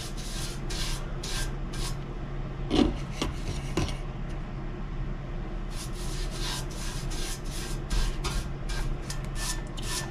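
Paintbrush bristles swishing across a Pontiac 350's stamped steel oil pan, brushing on engine enamel in short strokes about two a second, with a pause about four seconds in and a quicker run of strokes after it.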